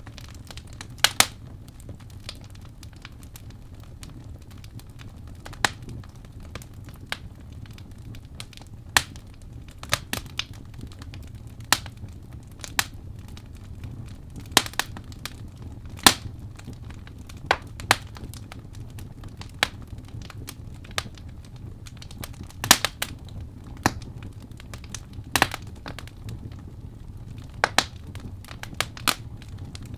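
Wood fire crackling in a fireplace: sharp pops at uneven intervals over a steady low rumble.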